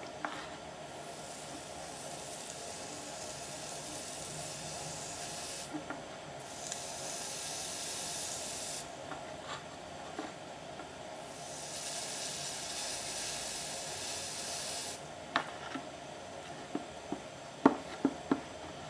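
Electropolishing wand hissing as it is worked over a stainless steel weld seam, the electrolyte reacting where current flows, in three stretches of a few seconds each. Several sharp taps near the end.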